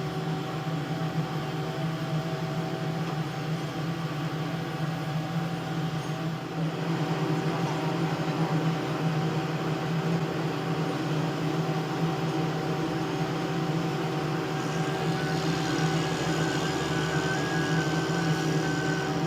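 Heavy construction machinery running steadily: a continuous engine drone with a low hum, slightly louder after a few seconds.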